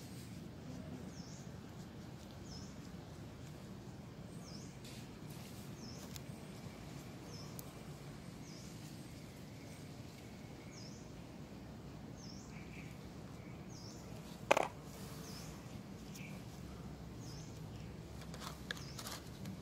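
Steady low outdoor background noise, with a faint high chirp repeating a little over a second apart throughout. One short sharp click about fourteen and a half seconds in, and a couple of faint clicks near the end.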